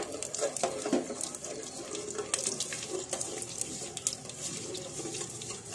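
Mustard and fenugreek seeds sizzling and crackling in hot oil in an enamel pot: a steady hiss broken by many quick pops, with a spatula stirring through the seeds.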